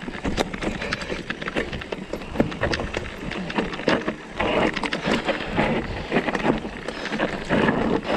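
Mountain bike going down a rough, rocky trail: irregular rattling and knocking as the tyres run over loose stones, with stretches of louder rushing noise.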